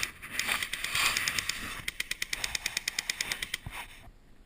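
Airsoft gun firing on full auto: a fast, even string of sharp clicking shots, about eight a second, mixed with rustling early on, stopping suddenly about four seconds in.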